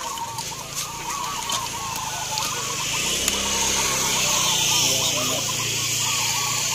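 Many caged zebra doves (perkutut) cooing at once, a dense chorus of overlapping calls, over a steady hiss that swells around the middle and a low hum.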